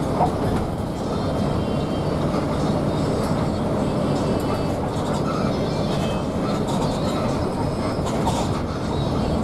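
Steady running noise inside an intercity coach driving at speed: its diesel engine, tyres on the road and light rattling of the cabin.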